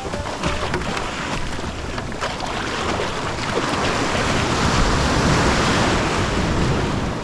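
Sea waves breaking and washing on the shore, swelling to a peak about five seconds in and then easing.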